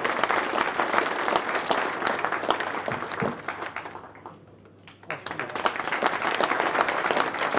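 Audience applauding, a dense patter of many hands clapping. It dies down a little past halfway, then starts up again abruptly.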